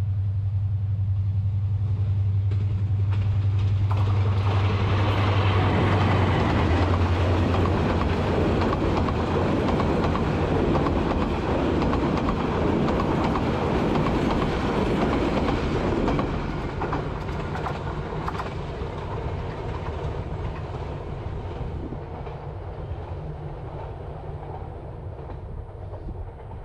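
Sagarika Express, a Bangladesh Railway meter-gauge passenger train, passing close by. A diesel locomotive's low engine hum comes first as it approaches. From about four seconds in, the coaches' wheels rattle loudly past for about twelve seconds, then the noise fades as the train moves away.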